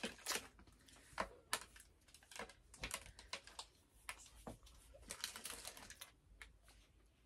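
Snack wrapper crinkling and clicking faintly as a smashed chocolate brownie is handled, in irregular crackles that are most frequent in the first three seconds and then thin out.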